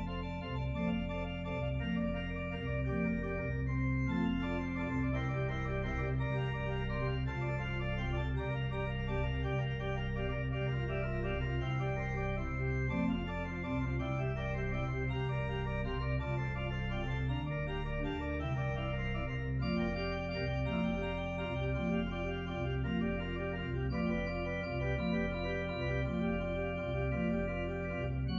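Organ music: slow, held chords that change every second or so over a sustained bass line.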